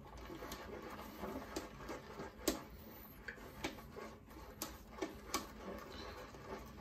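Synthetic shaving brush swirled through shaving-soap lather in a silicone bowl: soft, irregular wet clicks as a little fresh water is worked into the lather.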